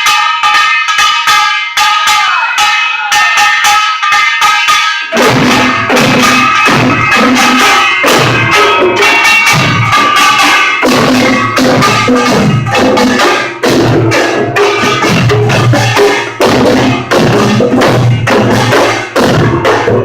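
Korean pungmul percussion ensemble playing: for about five seconds, rapid strikes on a ringing small brass gong (kkwaenggwari) carry alone, then the drums (janggu and buk) come in and the whole band plays a fast, loud, dense rhythm. The recording is a phone's, rough in quality.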